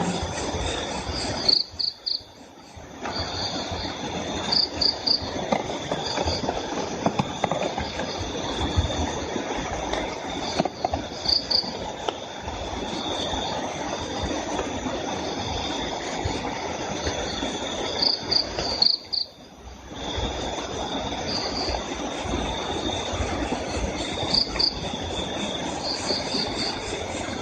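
Crickets chirping in short bursts of two or three pulses every few seconds over a steady insect trill, with a rough noise underneath. The whole recording dips out briefly twice.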